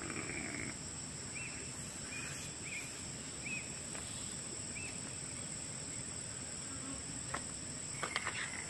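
Steady high-pitched drone of forest insects, with a handful of short chirps in the first half and a few faint clicks near the end.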